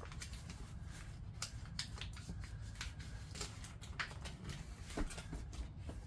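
Scattered small crackles and rustles of hands peeling the backing off self-adhesive Velcro strips and handling a carpeted caravan step, over a faint low hum.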